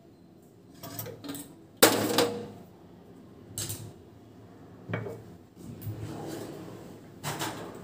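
Kitchen dishes and utensils being handled: a few separate clatters and knocks as a cup and vessels are picked up and set down on the counter. The loudest is a sharp knock with a short ring about two seconds in.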